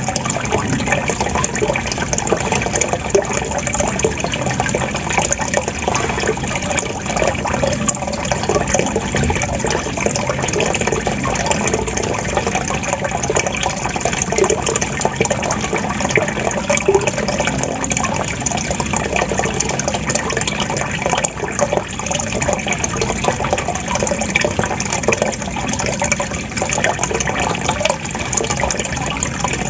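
Water gurgling and splashing steadily, like a small cascade or trickling fountain.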